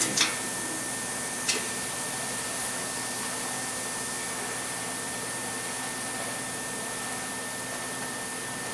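Steady fan-like running noise with a faint high steady whine, and a light click about a second and a half in.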